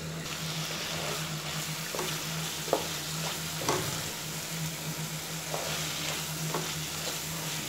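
Prawns sizzling as they fry in a spice paste in a non-stick wok, stirred with a spatula that scrapes the pan several times.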